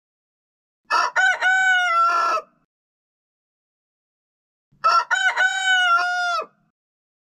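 Rooster crowing twice, each crow a full cock-a-doodle-doo of about a second and a half, with a silent gap of two seconds between them.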